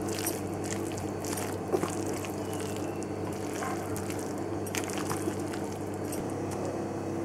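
Spatula stirring shredded chicken into mayonnaise in a glass bowl: soft wet squishing with scattered light scrapes and taps against the glass, over a steady low hum.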